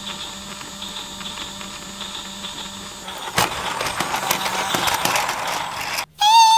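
Battery-powered toy train's small electric motor running with a steady whine on plastic track. About three and a half seconds in there is a sharp clack, then louder plastic rattling and clattering. Just before the end a loud electronic tone cuts in and dips in pitch.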